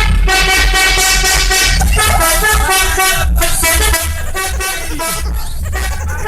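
Telolet musical horn playing a rapid melody of short notes over a heavy, pulsing low bass. It gets a little quieter about four seconds in.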